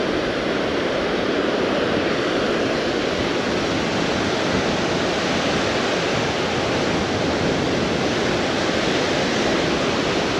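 Surf breaking in a stiff breeze: a steady, even rush of waves and wind with no breaks.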